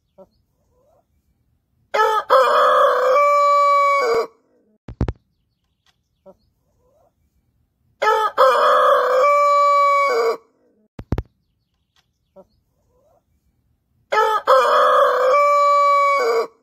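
Brahma rooster crowing three times, about six seconds apart. Each crow lasts a little over two seconds: a few short broken notes, then a long held note.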